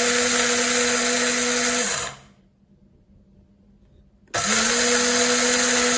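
Electric blade coffee grinder grinding dried millet groats into flour in short pulses. The motor runs with a steady whir, stops and winds down about two seconds in, then after a pause of about two seconds starts again and runs on.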